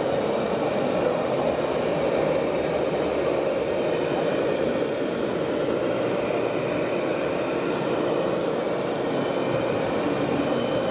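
Steady running drone of radio-controlled scale construction machines and trucks, their electric motors and engine-sound modules mixed with busy hall noise.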